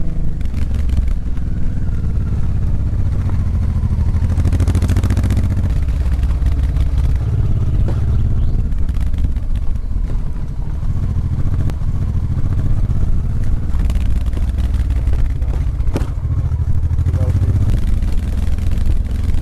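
Motorcycle engine running steadily at low road speed, heard from a camera mounted on the bike, with a dense low rumble and occasional short knocks and clatter, the sharpest about 16 seconds in.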